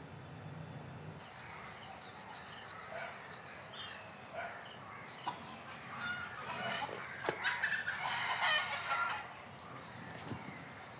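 A rooster crowing, the loudest sound, a drawn-out call about six and a half seconds in. Scattered small bird chirps come before it.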